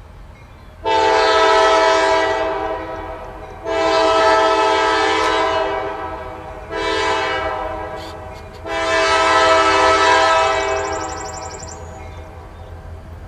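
An approaching Norfolk Southern diesel freight locomotive's air horn blowing long, long, short, long: the standard warning signal for a grade crossing. The last blast trails off near the end over a steady low rumble.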